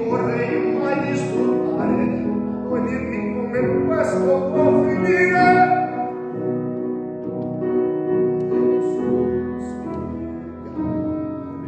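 Male vocalist singing with grand piano accompaniment. The voice is strongest in the first half, then thins out while the piano carries on, growing quieter near the end.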